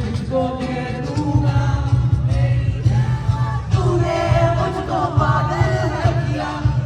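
A song plays: singing voices over a steady, heavy bass beat.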